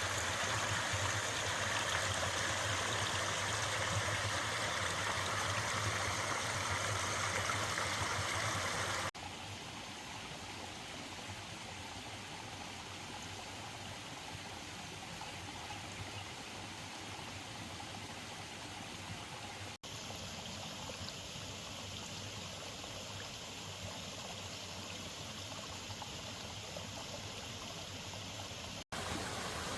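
Mountain valley stream flowing with a steady rush of water. It is loudest for the first nine seconds, then drops sharply and runs on at a lower level, with two more abrupt changes near twenty seconds and near the end.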